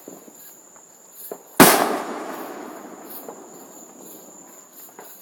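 A firework going off with one loud bang about one and a half seconds in, its boom echoing and fading over the next couple of seconds, with fainter distant pops before and after.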